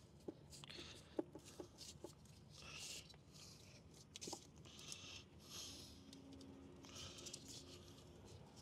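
Faint hand-tool and handling noises on a motorcycle's cooling system: a few light clicks and knocks with short bouts of scraping and rustling as the coolant hoses are worked loose.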